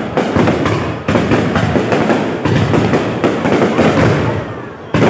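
Fireworks bursting and crackling densely. A fresh loud burst comes about a second in and another near the end, each fading off.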